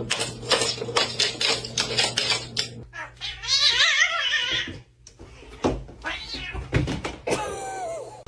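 A domestic cat gives one long, wavering yowl about three seconds in and a shorter cry near the end. Before the yowl there is a run of sharp taps and clicks over a steady hum.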